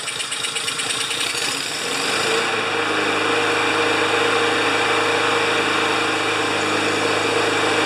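Honda engine on a Lawn-Boy push mower running on a replacement carburetor. About two and a half seconds in its sound changes and settles into a steady hum that holds.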